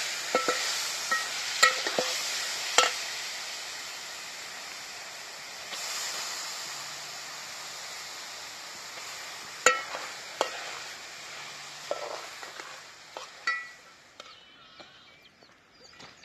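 Sprouted moth beans sizzling as they go into hot oil and masala in a metal pot and are stirred, with a metal spatula clicking against the pot now and then. The sizzle fades away about three-quarters of the way through.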